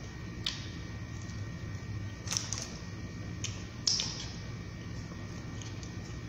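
Eating sounds of chicken wings being chewed and pulled off the bone: a handful of short, sharp mouth smacks and clicks, the loudest about four seconds in, over a steady low hum.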